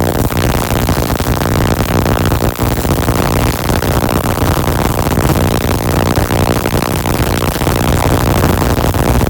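Spark-gap Tesla coil running, its air-blown spark gap firing in a loud, steady buzzing crackle with a low hum beneath.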